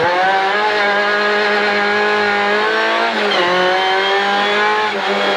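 Rally car engine heard from inside the cockpit, running hard at high revs under acceleration. Its pitch climbs, holds, dips briefly about three seconds in, then climbs again.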